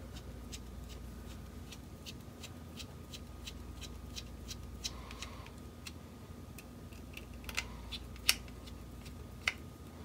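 Small precision screwdriver driving tiny screws into a drone's gyro sensor board: faint, irregular light ticks and scrapes of metal on metal, with a few sharper clicks in the last few seconds.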